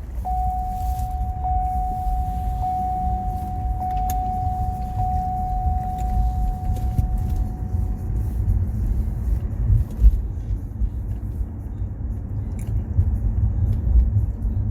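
Car driving, heard from inside the cabin: a steady low road and engine rumble. An electronic tone sounds steadily from just after the start and fades out about eight seconds in.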